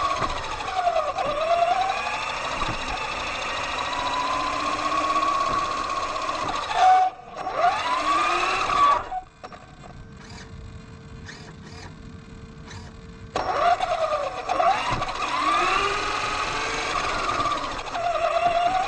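Axial Yeti XL RC truck's electric motor and drivetrain whining, the pitch rising and falling again and again with the throttle. Around nine seconds in it drops to a low, steady hum for about four seconds, then the whine picks up again.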